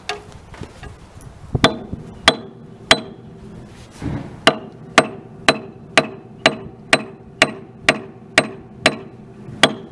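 A hand hammer striking the rusted steel eccentric crank on the driving wheel of a 1937 Porter 0-4-0T steam locomotive: about fourteen ringing metal blows. The first three come spaced apart, and after a pause a steady run follows at about two a second. The blows are trying to knock loose parts that are seated tight.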